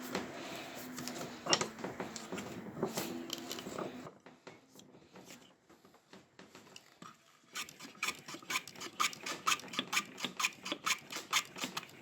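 Hand plane shaving a small wooden handle blank, with a quieter lull in the middle. In the second half, quick, evenly spaced strokes come two to three a second.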